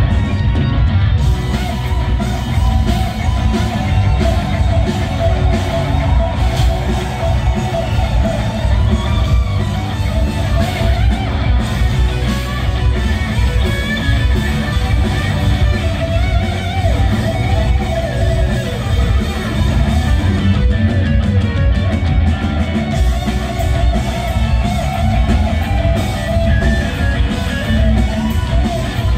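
Live rock band playing an instrumental passage: an electric guitar lead with bending, wavering notes over drums and bass.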